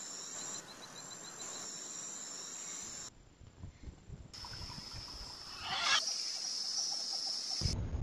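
Rainforest ambience dominated by insects keeping up a steady high-pitched buzz. The background changes abruptly several times as the recordings switch. A short louder noisy sound comes just before six seconds in.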